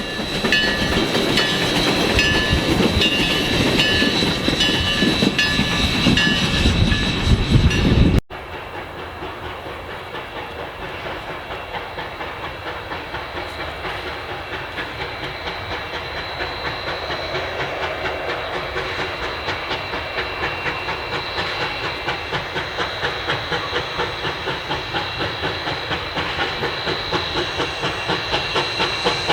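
Ten-wheeler (4-6-0) steam locomotive No. 152 working a train. The first eight seconds are loud, with high steady tones over the noise of the train. After a sudden cut, an even rhythm of exhaust beats slowly grows louder as the engine approaches.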